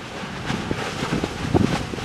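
Erta Ale's molten lava lake churning and spattering: a surf-like rushing with irregular low bursts that grow stronger near the end, mixed with wind buffeting the microphone.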